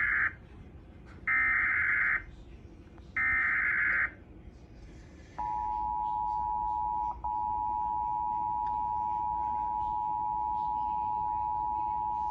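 Emergency Alert System SAME header: three short bursts of buzzy digital data tones, each about a second long and about a second apart. About five seconds in comes the EAS two-tone attention signal, a steady pair of tones held on, with one very short dropout near seven seconds. Together they announce a National Weather Service flash flood warning.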